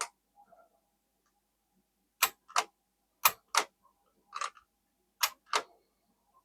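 1887 Hall index typewriter being typed on slowly: sharp mechanical clicks that come in pairs about a third of a second apart, a pair roughly every second.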